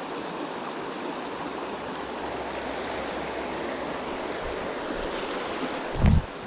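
Small mountain creek running steadily over rocks. About six seconds in there is one short, low thump.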